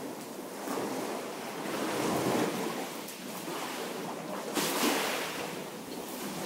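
Small sea waves lapping and sloshing inside a sea cave, with a louder surge about two seconds in and another near five seconds.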